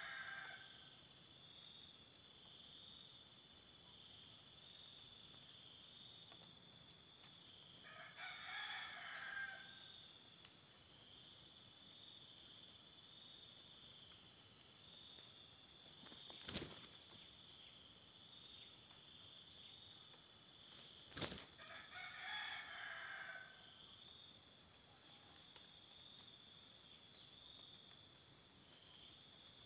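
Red junglefowl roosters crowing: the end of a crow at the very start, then two short crows about 8 and 22 seconds in, over a steady, pulsing chorus of insects. Two sharp clicks come between the later crows.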